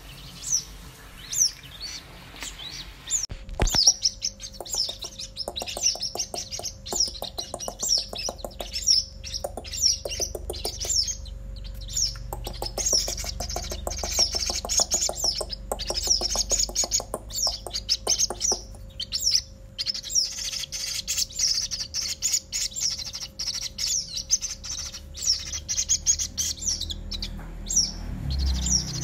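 White-breasted waterhen chicks peeping continuously: many short, high, downward-sliding cheeps in quick succession, with runs of faster, lower trilled calls in the first half.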